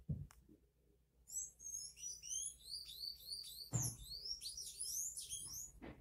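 A small songbird singing a fast, high-pitched twittering song of short slurred notes, starting about a second in and stopping near the end, with a few low knocks.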